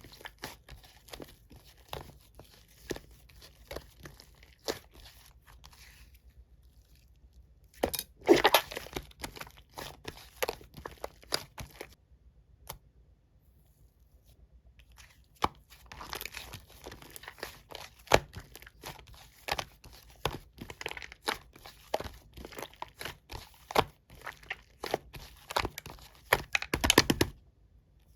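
Plastic packaging being handled and crinkled close up, in irregular crackling clusters. There is a louder spell about eight seconds in, a pause about halfway through, then dense crinkling again.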